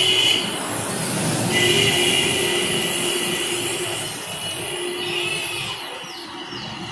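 Compressed-air spray gun hissing with a high whistle as it sprays the final coat of finish onto a wooden door. The spray stops for about a second near the start, starts again, and fades off near the end.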